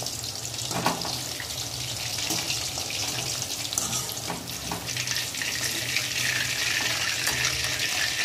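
Chicken pakoras deep-frying in hot oil in a kadai: a steady sizzling hiss that grows louder about halfway through, with a few short clicks of a wire skimmer against the pan as the fried pieces are lifted out.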